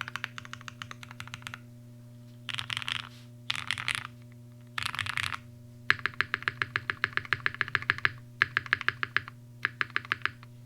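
Typing on a custom mechanical keyboard with lubed Cherry MX Black linear switches in an aluminum half plate, O-ring mounted, with a layer of gaffer's tape under the PCB. The keystrokes come in quick runs with short pauses between, and the runs from about halfway through are louder and more even.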